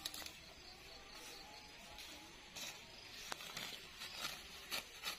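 Faint rustling of long grass being handled, with a few short soft snaps in the second half.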